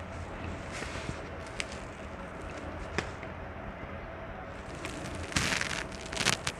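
Paper sheets rustling as they are handled and leafed through, with a few sharp clicks and a louder rustle of pages about five seconds in.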